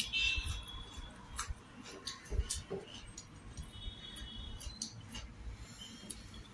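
Small clicks and taps of fingers picking food from a plate while eating by hand.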